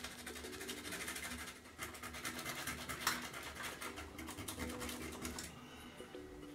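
Sandpaper rubbed quickly back and forth against the rough edge of a drilled hole in an aluminium case, a rapid run of scratchy strokes that eases off about five and a half seconds in.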